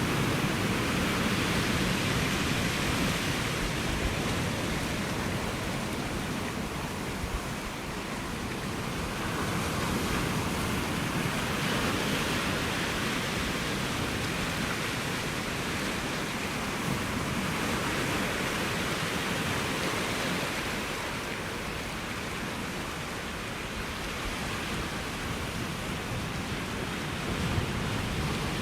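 Ocean surf breaking on the shore: a continuous rushing wash that swells and eases every several seconds as waves come in.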